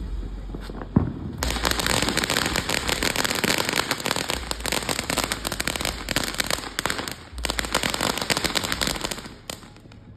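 A ground firework going off: a dense run of rapid, crackling pops lasting about eight seconds, then stopping shortly before the end. A single sharp click comes about a second in, just before the crackling starts.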